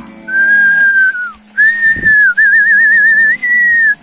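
A cattle herder whistling loudly to drive the herd: a long high note that dips at the end, a second note, a quick warbling trill, then a last held note. Cattle low faintly underneath.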